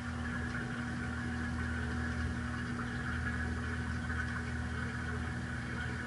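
Top-loading washing machine running, heard from inside its water-filled tub: a steady low hum with a hiss over it.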